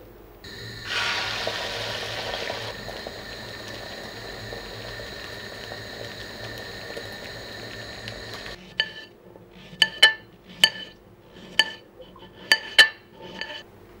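Egg frying in a hot pan, a steady sizzle that is loudest for its first couple of seconds and stops abruptly about eight and a half seconds in. It is followed by a run of about eight sharp, ringing clinks against a plate.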